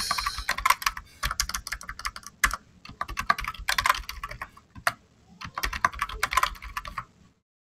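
Computer keyboard typing: two quick runs of keystrokes separated by a short pause about five seconds in, with the typing stopping about seven seconds in.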